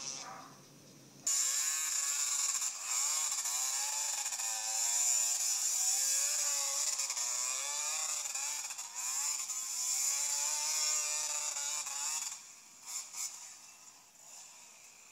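Dirt bike engine revved up and down over and over during a burnout, heard thin and buzzy through a small camera speaker. It cuts in suddenly about a second in and stops about twelve seconds in.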